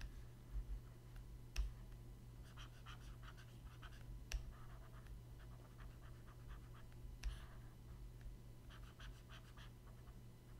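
Faint scratching strokes of a pen stylus on a graphics tablet, in two short flurries, with a few sharp clicks, over a low steady hum.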